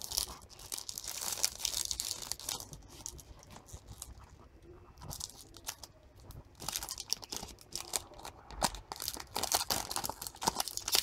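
Plastic being handled: dense crinkling and clicking, with a quieter lull in the middle.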